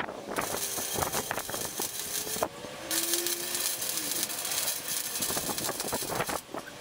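Electric arc welder welding 2x2 square steel tube, a steady crackling hiss with a short break about two and a half seconds in.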